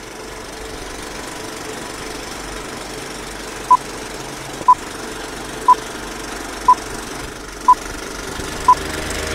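Old film-leader countdown sound effect: a short, high beep once a second, six in all, starting a little over a third of the way in. Under it runs the steady whirring clatter of a film projector.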